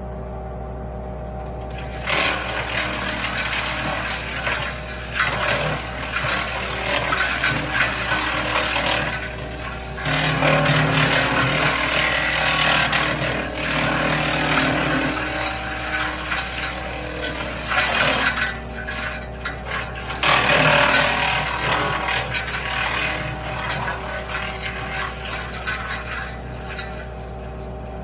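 WoodMaxx MX-8800 PTO-driven wood chipper running off a Kubota L3901 tractor's diesel engine with a steady hum. From about two seconds in it chews through apple tree prunings, an uneven crackling clatter that swells and eases with each feed and dies back near the end.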